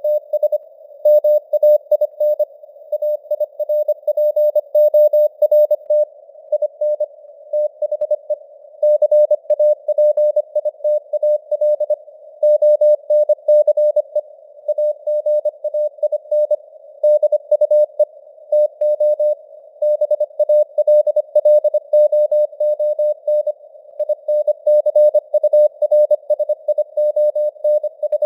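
Morse code (CW) news text sent at 25 words per minute: a single steady mid-pitched beep keyed on and off in quick dots and dashes, with short pauses between words. A narrow band of simulated radio-receiver hiss sits around the tone.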